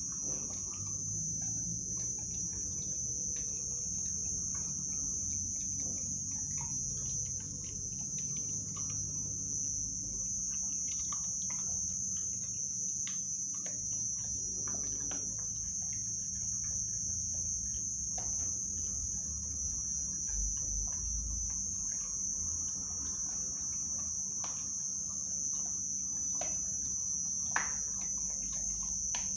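Steady high chirping trill of crickets, with scattered short smacks and clicks of a pit bull puppy chewing raw meat, one sharper smack near the end.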